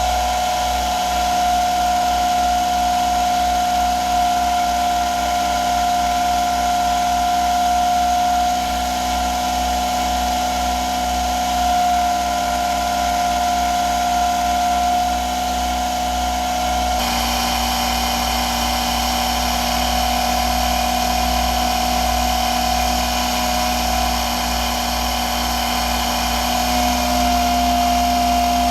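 Electric drive motor of a Lorch 6mm watchmaker's lathe running steadily, turning the headstock through a rubber belt, with a steady high whine over a low hum; the tone shifts abruptly about seventeen seconds in. The noise is mostly the motor, not the smooth-running headstock.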